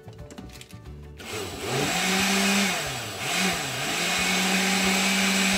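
Countertop blender switched on about a second in. Its motor spins up with a rising whine, churning a liquid batter of eggs, oil, sugar and milk. The pitch dips and recovers once, then holds steady.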